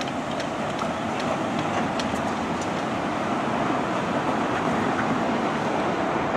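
Steady running noise from a Long Island Rail Road Kawasaki M9 electric multiple-unit train, with a few faint clicks.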